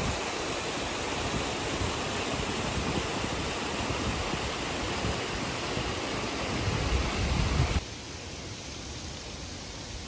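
Steady outdoor rushing noise with no distinct events. A low rumble swells, then about three-quarters of the way in the sound drops abruptly to a quieter, even hiss.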